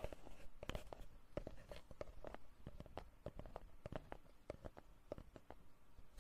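A run of light, irregular taps and clicks close to the microphone, a few every second, from objects being handled for an ASMR recording.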